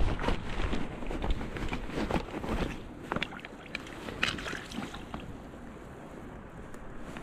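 Creek water sloshing around a landing net with a small trout splashing in it, mixed with irregular clicks and knocks from handling the net and hemostats during unhooking. The splashing is busiest in the first few seconds and settles down toward the end.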